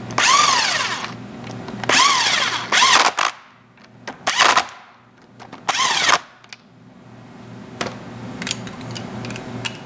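Cordless drill spinning a socket to run down the port-plate bolts of a hydraulic motor. It makes four short runs, each winding up in pitch and back down, over the first six seconds. Light clicks of tool handling follow.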